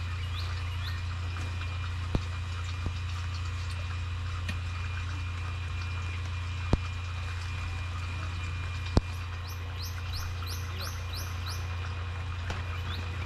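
Rain falling steadily on a tent canopy, with a few sharp taps of heavier drops on the fabric. A bird chirps in quick runs of short calls near the start and again about ten seconds in.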